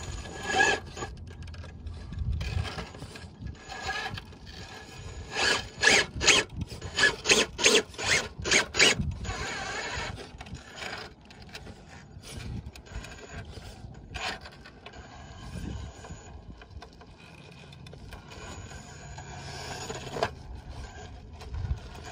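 RC rock crawler working over rock: a loud run of rasping scrapes and clicks between about five and nine seconds in as the tires and chassis grind against the rock, with quieter scraping and a faint high drivetrain whine at times before and after.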